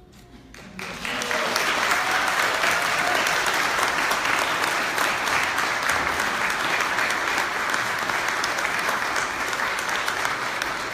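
Congregation applauding, starting about a second in and going on steadily as a dense, even clapping.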